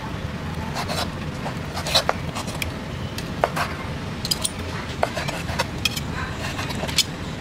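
Kitchen knife cutting boiled beef tripe on a wooden cutting board: irregular sharp knocks of the blade against the board, roughly one a second, with soft scraping between them, over a steady low background rumble.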